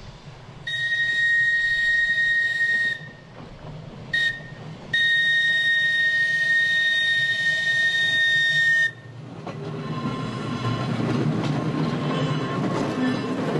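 Electric tram's whistle sounding a long blast, a short pip, then a second long blast, all on one steady high note. After that the tram draws near and passes, its wheels rumbling on the rails and growing louder near the end.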